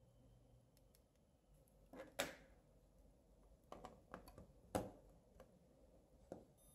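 AA batteries being pressed into a plastic battery holder: a few sharp clicks and knocks against the spring contacts, the loudest about two seconds in and again near five seconds.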